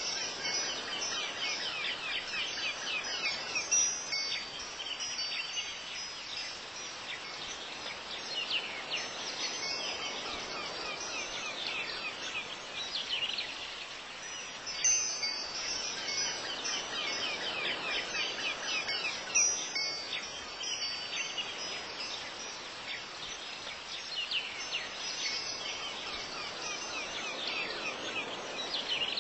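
Wind chimes tinkling over a soft background, with the same passage repeating about every fifteen seconds like a loop.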